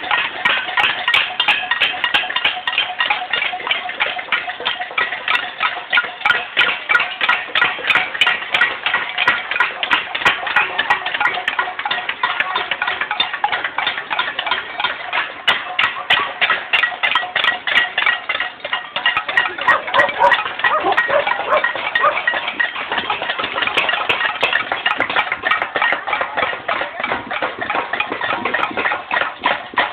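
Cacerolazo: many people banging on pots and pans, a dense, continuous clatter of overlapping metallic strikes that ring on.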